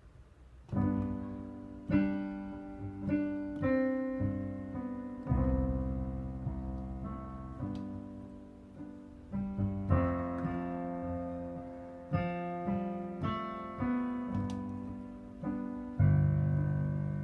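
Solo piano playing a song's slow intro: chords struck one after another every second or two, each left to ring and fade.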